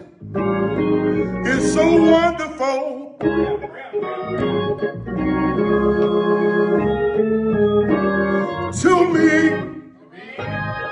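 Organ holding sustained gospel chords, with a man's voice singing two drawn-out, wavering wordless phrases over it, one about two seconds in and one near nine seconds.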